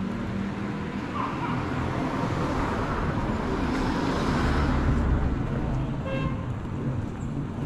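A car driving past on the street, its engine and tyre noise swelling to a peak about four to five seconds in and then fading.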